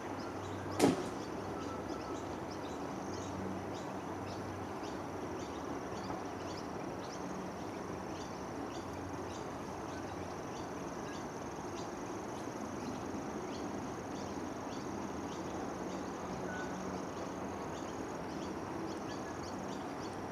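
Outdoor ambience: a steady background hiss with a constant high, thin whine and many short, high chirps, and one sharp click about a second in.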